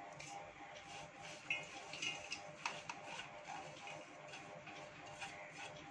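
Roasted peanuts, dry coconut and spices scooped by hand into a steel mixer jar: faint dry rustling with light clicks of nuts against the metal, a couple of them sharper about three seconds in.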